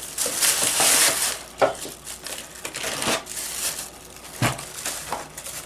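Plastic-wrapped food packets crinkling and rustling as they are handled and packed into a cardboard box, loudest in the first second or so, with a few sharp knocks of the packs against the box.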